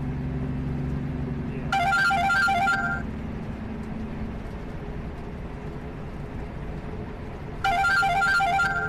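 An electronic alert sounds twice, about six seconds apart: each burst is a little over a second of rapid warbling beeps. It plays over the steady low drone of the semi truck's cab on the highway.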